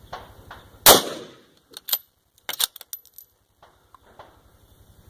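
A single rifle shot from a scoped bolt-action precision rifle about a second in, followed by a few short metallic clicks of the bolt being worked for the next round.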